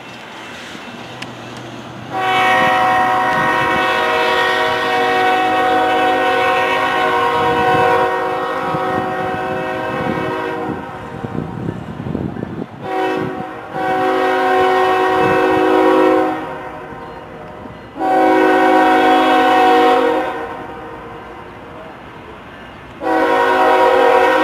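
Approaching locomotive's multi-chime air horn sounding a series of blasts: one long blast of about eight seconds, a brief toot, then three blasts of two to three seconds each, the last still sounding at the end. A low train rumble is heard between blasts.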